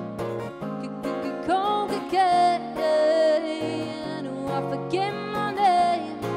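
Live acoustic performance: a woman singing sliding, held vocal notes without clear words over a strummed acoustic guitar.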